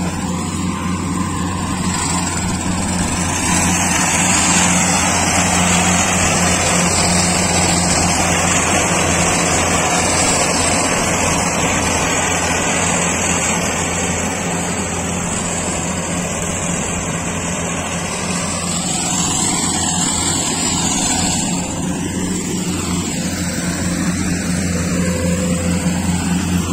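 Rice combine harvester running as it cuts the crop: a steady engine drone with a low hum, under the even rushing noise of the machinery.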